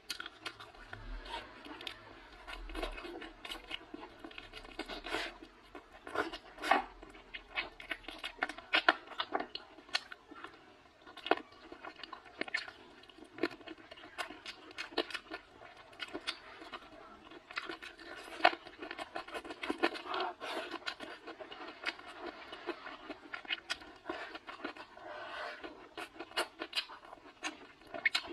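A person chewing mouthfuls of spicy chicken wings, with irregular crunches, clicks and crackles of eating close to the microphone.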